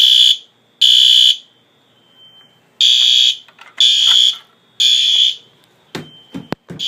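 Fire alarm system sounding its evacuation signal: a high-pitched tone beeping in the temporal-three pattern, groups of three half-second beeps with a longer pause between groups, set off for a system test. A few sharp clicks near the end.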